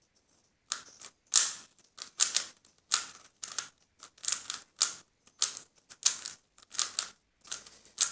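3x3 Rubik's cube being turned fast with finger tricks: quick clacking of the plastic layers, two or three turns a second, starting after a brief pause.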